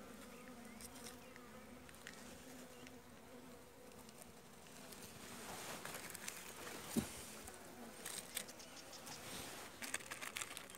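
Honeybees buzzing at an open hive, a steady hum. From about halfway, the plastic wrapping of a pollen patty crackles and rustles as it is handled, with one thump about seven seconds in.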